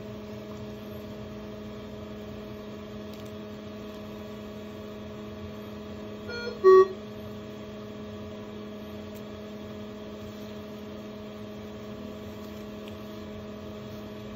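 Steady electrical hum from bedside ICU equipment, several even tones held level. About six and a half seconds in comes a brief, loud two-part tone.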